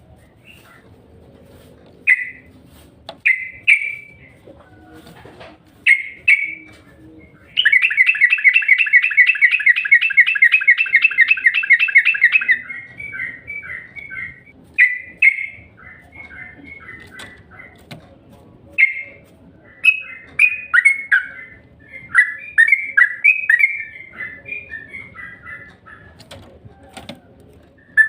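Trucukan (yellow-vented bulbul) singing a lure song. Short bubbly chirps come first. About eight seconds in, a loud, rapid trill runs for about five seconds, then the bird goes on with runs of quick chirps.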